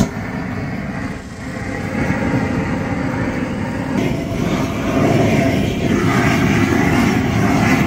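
Handheld propane weed-burner torch blasting a large flame onto charcoal briquets to light them: a steady, loud rushing noise that starts abruptly as the torch lights and grows louder a couple of seconds in and again near the middle.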